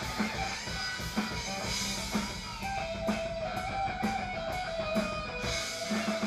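Heavy metal band playing live: electric guitar holding long notes over a drum kit keeping a steady beat.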